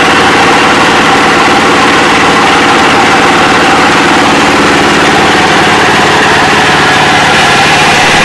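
22 HP diesel engine of a KL-230A pellet mill running steadily at full speed with the clutch engaged, driving the 9-inch die and rollers as they press pellets.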